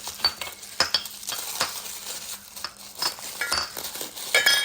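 Glass teapot parts, the teapot and its glass filter, clinking and knocking together as they are handled, several clinks with a short ringing tone. The loudest cluster of clinks comes near the end.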